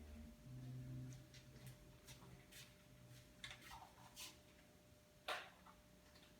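Near silence: room tone with a few faint scattered clicks, a brief low hum in the first second, and one sharper click about five seconds in.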